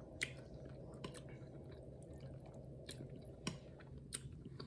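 Close-up wet chewing of cooked chitterlings, with a handful of scattered sharp clicks.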